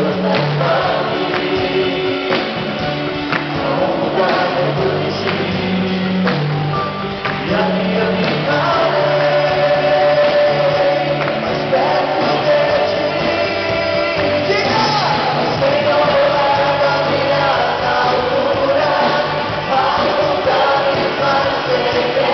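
A live church worship band and a group of singers perform a gospel praise song, heard from among the congregation: several voices sing held notes over the band's accompaniment.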